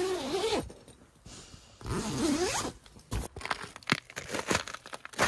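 Zipper of a quilted ice-fishing tent's door being unzipped in two long pulls, each a scraping whizz that slides up in pitch. From about three seconds in comes a run of short, sharp crunches in snow.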